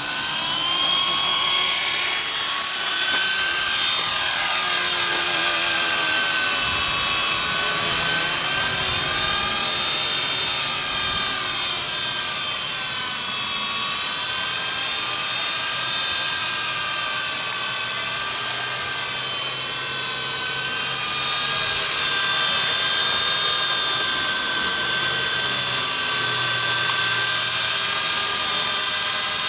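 Small electric RC helicopter (WL912 4-channel) whining continuously as it lifts off and flies. The pitch rises near the start, then wavers up and down with the throttle.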